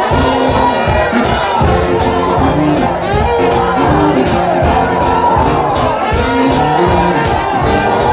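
Live shout-band music: trombones playing held and sliding notes over a steady drum beat, with crowd noise underneath.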